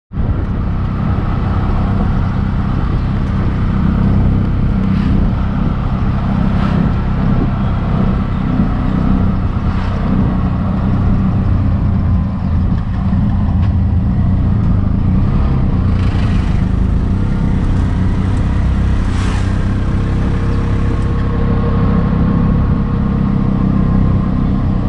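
Auto-rickshaw (tuk-tuk) engine running steadily as it drives along a road, heard from inside its open-sided passenger compartment.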